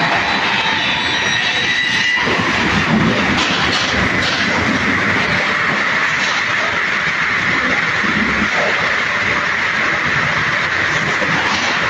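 Automatic log sawing line running: a loud, steady din of saw motors and chain conveyors, with clattering as logs move along. The sound changes about two seconds in.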